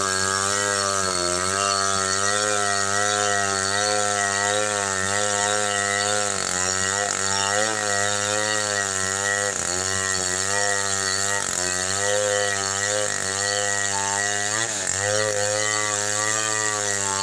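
Two-stroke chainsaw running at high revs while cutting falcata wood. The engine note wavers steadily under the load and dips briefly several times.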